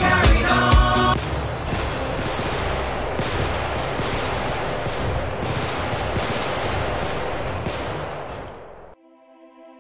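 Dense, rapid gunfire sound effect: a continuous volley of shots that cuts in about a second in, after a moment of upbeat music, and fades out near the end.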